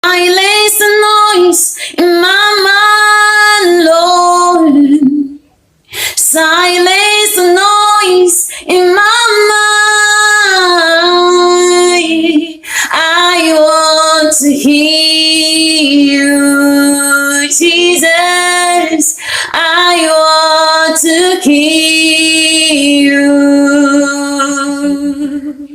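A woman singing a gospel worship song in long, held phrases, pausing briefly about five and twelve seconds in.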